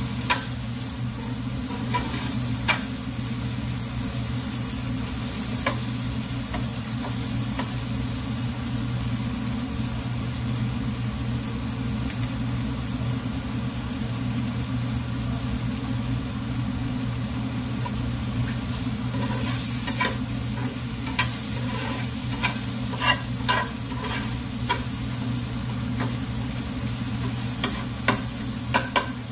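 Onions, peppers and tomato frying in a nonstick frying pan over a gas burner, with a steady low hum underneath. A metal fork stirs the vegetables and clicks and scrapes against the pan, the clicks coming in quick clusters in the second half while the tomato cooks down.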